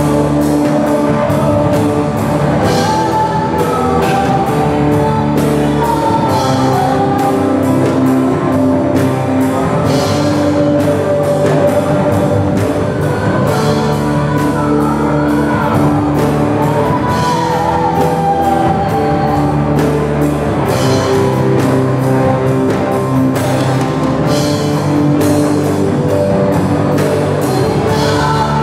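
Live rock band playing: a female singer on a microphone over amplified electric guitars, bass guitar, keyboard and drum kit, with a steady beat of drum and cymbal hits.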